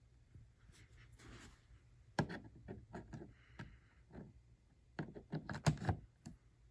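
A run of light knocks and clatters, like objects being handled or set down, starting about two seconds in, with a louder cluster near the end, over a faint low hum.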